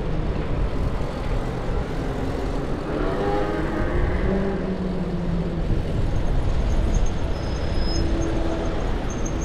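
City street traffic heard from a moving bicycle: a steady low rumble of road and wind noise, with the hum of a nearby motor vehicle's engine coming through in the middle. Faint high ticking comes in over the last few seconds.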